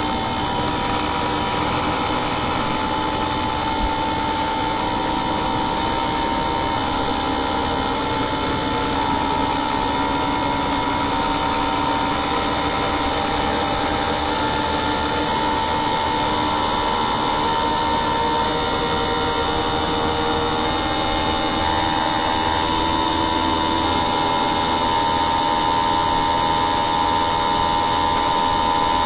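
Inverter air conditioner running steadily, with a whine that steps up and down in pitch as the drive changes speed.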